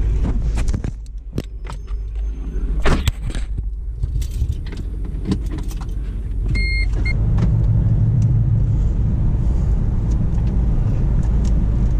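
Scattered clicks and knocks of handling inside a car, a short electronic beep with a brief second one partway through, then a car engine running steadily as the car drives, louder in the second half.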